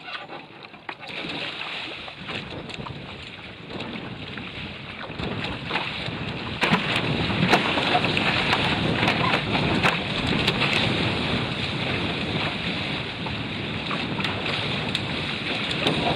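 Water rushing and splashing over the bow of a small sailing catamaran as it picks up speed, with wind buffeting the microphone. The rush builds after a few seconds and is loudest in the middle, with many sharp splashes as the deck and trampoline are awash.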